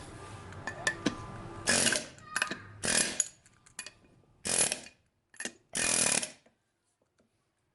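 Pneumatic air hammer with a big flat bit firing in about six short bursts, hammering on old lug nuts threaded onto the wheel studs to drive the studs out of the front wheel hub.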